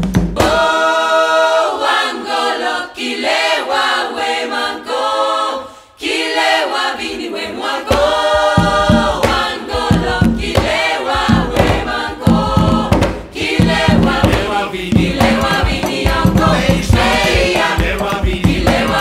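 Soundtrack music: a choir singing, at first with voices alone, then with drums coming in on a steady beat about eight seconds in.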